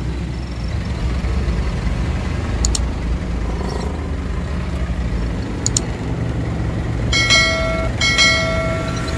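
Truck engine running low and steady in slow traffic, heard from inside the cab. About seven seconds in, a vehicle horn sounds two blasts of about a second each, close together.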